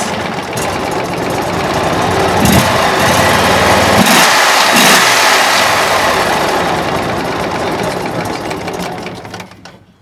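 Briggs & Stratton Vanguard 23 HP V-twin engine on a Mud Buddy surface drive mud motor running. It gets louder over the first couple of seconds as it is throttled up, then winds down and stops just before the end. The running motor sounds to the owner like it needs some grease.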